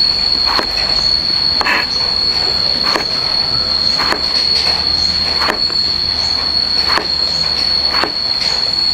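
Steady, high-pitched insect drone, with sharp knocks about every second or so.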